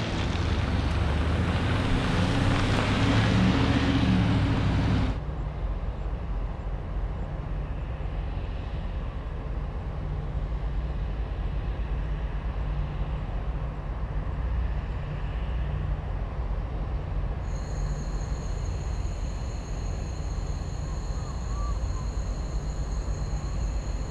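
Steady low rumble of distant heavy machinery with wind noise on the microphone. About five seconds in it cuts abruptly to a quieter, steady low hum, and two faint steady high-pitched tones join it later on.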